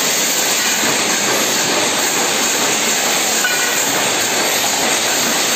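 Workshop machinery running: a loud, steady, dense hiss-like mechanical noise with no clear beat.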